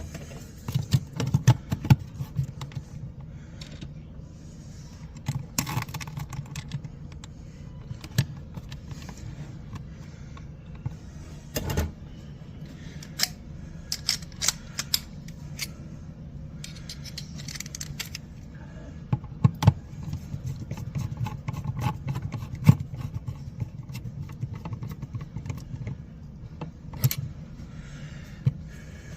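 Hand-work with tools and small metal parts: scattered clicks, taps and light scrapes, irregular and with no steady rhythm.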